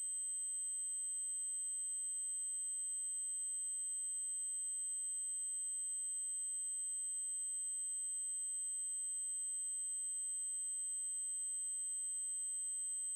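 Steady, high-pitched synthetic test tone: an 8192 Hz triangle wave held at one unchanging pitch and level.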